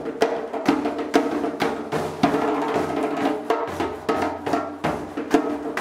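Hand drums (frame drum, goblet drum and djembe) played in a steady rhythm, with a sustained melodic line over the beat.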